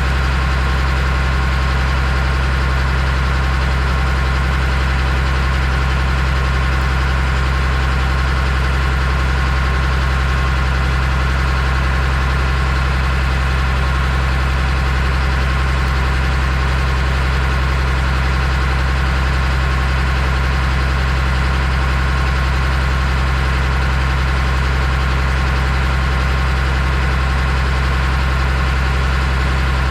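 An engine running steadily at one constant speed, a low even drone that does not change.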